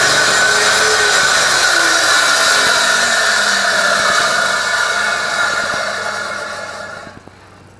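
Table saw running with a loud whirring hiss, its pitch sliding down as it winds down, fading out about seven seconds in as the blade coasts to a stop.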